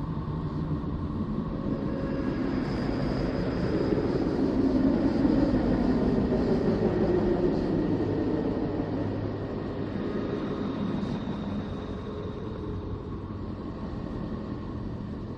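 Sonified spacecraft radio or plasma-wave recording: a dense, low noise with a few faint steady tones above it, swelling to its loudest about five seconds in and then slowly easing off.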